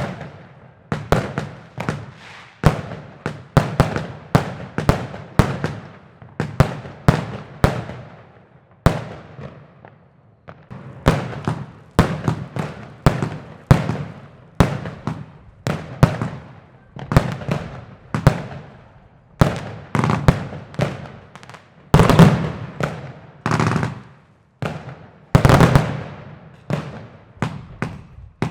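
New Year's Eve fireworks going off: a steady run of sharp bangs, about one or two a second, each dying away quickly. Louder, denser clusters of bangs come a little before the end.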